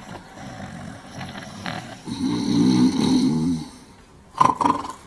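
Two men snoring, with a long loud snore about two seconds in. Two short sharp sounds come near the end.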